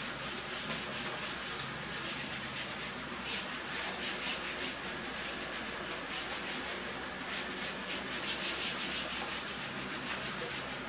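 Whiteboard eraser rubbing across a whiteboard, wiping off marker writing in rapid back-and-forth strokes.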